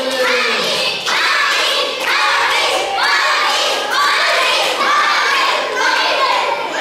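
A crowd of children shouting and cheering in a rhythmic chant, with a rising group shout about once a second.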